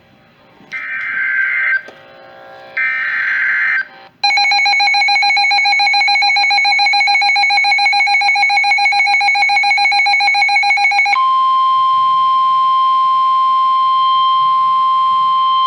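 NOAA Weather Radio emergency alert tones. First come two short, harsh, buzzing bursts of SAME header data. Then a steady alert tone with several pitches runs for about seven seconds, and then a single steady 1050 Hz warning alarm tone takes over, signalling that a warning message follows.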